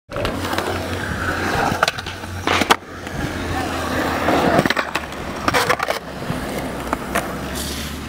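Skateboard wheels rolling on smooth concrete in a skatepark bowl, a steady low rumble. Several sharp clacks of the board against the concrete are heard through it, the loudest about two and a half seconds in.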